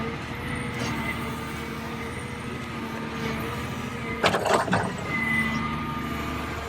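Small electric motors of a radio-controlled toy excavator whining steadily, with a short clatter of knocks a little over four seconds in.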